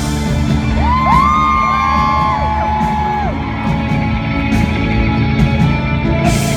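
Live band playing with guitar, no singing, while several audience members whoop and scream over it a second or two in.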